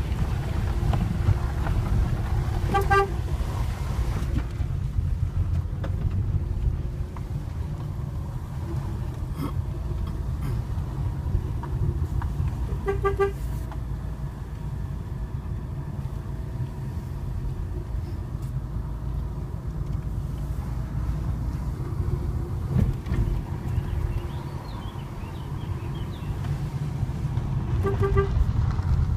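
Fiat Panda's horn beeping briefly three times, about ten seconds apart, as a warning to any oncoming car on the single-lane road. Steady low engine and road rumble underneath.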